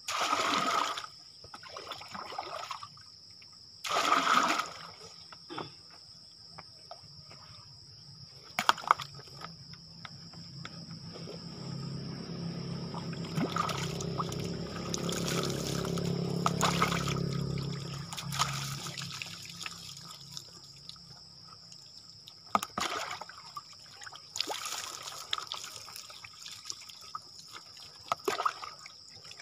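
Water trickling, with bowlfuls of water poured and splashed over a person bathing: two short, loud splashes near the start and about four seconds in, and a longer pour in the middle.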